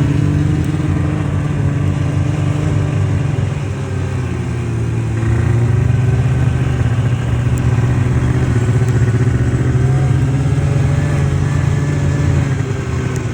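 An engine running steadily, its pitch drifting slightly up and down, a little quieter about four seconds in.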